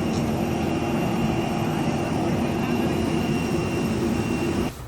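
A steady engine drone with a constant whine over it, cutting off abruptly near the end.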